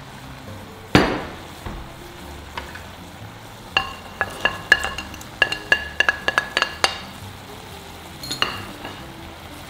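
Quick run of ringing clinks on a ceramic plate, about a dozen in three seconds, as chopped green onions are scraped off it into a clay pot, with one more clink near the end. A single louder knock comes about a second in, over the pot's faint steady sizzle.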